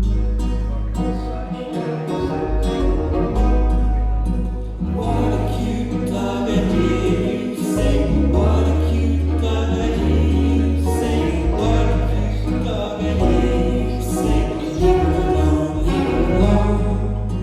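Live acoustic band playing an upbeat song, with plucked banjo over steady bass notes and singing voices.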